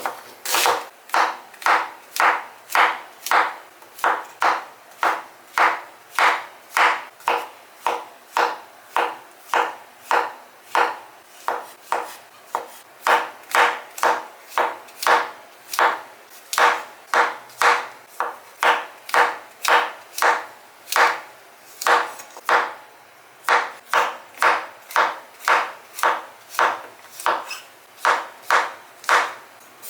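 Kitchen knife chopping vegetables on a cutting board, a steady rhythm of slightly under two cuts a second with one short pause partway through.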